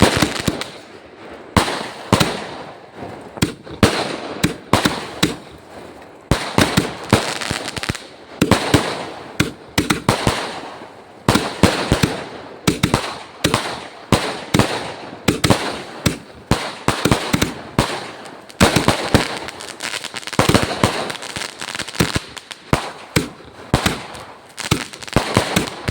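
Firecrackers going off one after another: a long run of loud, sharp bangs at irregular spacing, sometimes several in quick succession, each with a short echoing tail.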